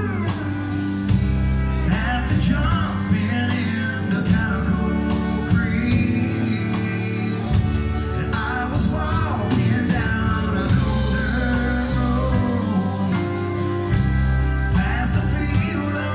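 Live country rock band playing: electric guitars, bass and drums, with a man singing lead.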